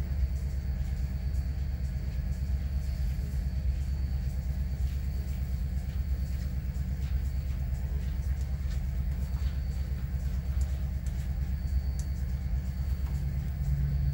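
Sound-decoder diesel engine sound of model SD40-2 locomotives (BLI Paragon decoder played through a Rolling Thunder subwoofer system): a steady deep rumble of the engines working hard as a heavy coal train struggles up a 2% grade, with a stronger hum coming in near the end.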